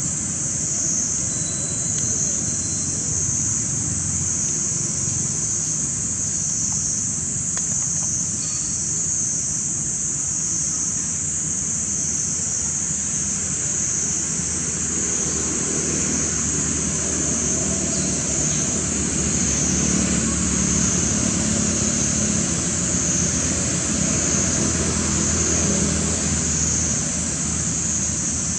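Steady outdoor background: a continuous high-pitched drone with a slight waver over a low rumble, with no distinct calls or knocks standing out.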